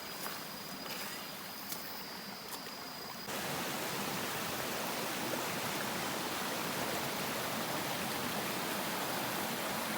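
Steady rushing of a waterfall and river. For about the first three seconds it is quieter, under a thin steady high whine and a few faint clicks; then it cuts to louder, even rushing water.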